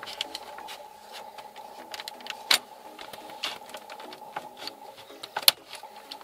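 Plastic trim bezel around a Porsche Cayenne's dashboard radio being pried loose with a plastic panel removal tool: a run of small plastic clicks and creaks, with two sharp snaps, one about two and a half seconds in and one near the end, as its clips give. A steady faint hum runs underneath.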